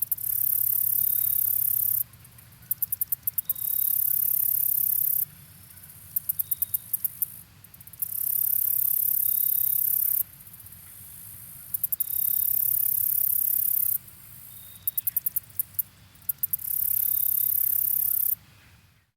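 Insect song, very high-pitched: a quick run of clicking pulses, then a steady buzz about two seconds long, repeated over and over. It stops abruptly at the end.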